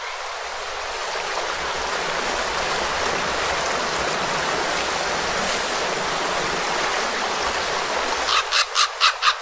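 Steady rushing of river water. Near the end a corvid gives a quick run of about six short, sharp calls.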